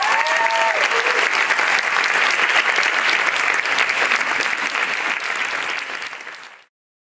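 Audience applause, dense and steady, with a few voices calling out in the first second; it fades out near the end.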